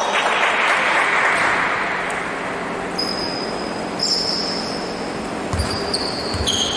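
Basketball game on an indoor court: echoing hall noise, then high sneaker squeaks on the floor from about three seconds in, and a few ball bounces near the end.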